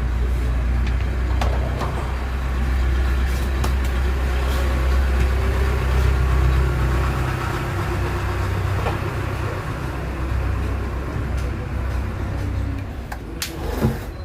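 A steady low rumble with a light haze of noise over it, easing slightly in the second half; a few faint clicks and a sharp knock near the end.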